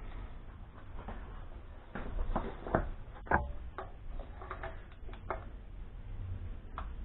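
Scattered clinks and knocks of hands and tools working at a Weber 32/36 carburettor on an engine's inlet manifold, with a handful of sharp taps between about two and five and a half seconds in.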